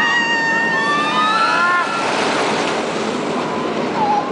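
A steel roller coaster train passing overhead. For about two seconds several riders scream together, then the rushing noise of the train running along the track takes over.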